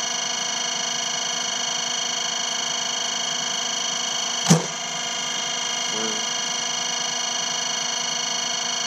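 A single sharp crack of a bat hitting a pitched baseball, about halfway through, over a steady hum of several high tones.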